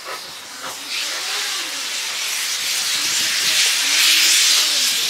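Class C10 steam locomotive hissing steam from its cylinder drain cocks as it moves slowly during shunting. The hiss swells about a second in and is loudest near the end.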